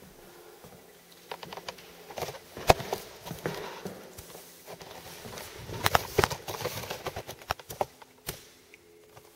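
A T-bar floor-finish applicator on a pole being pushed and turned across a hardwood floor, giving irregular clicks and knocks, with one sharp knock about three seconds in and a cluster of clicks around six seconds.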